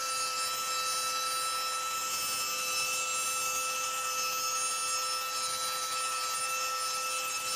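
FLEX rotary polisher running at a steady speed with an even, high whine. Its foam pad is buffing cutting compound on a plastic headlight lens to take out sanding scratches.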